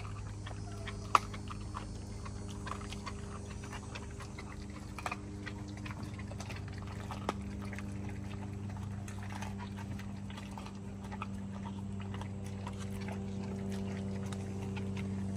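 American bully dog chewing raw chicken leg quarters: scattered wet crunches and clicks as the bones break, with one sharp crack about a second in, over a steady low hum.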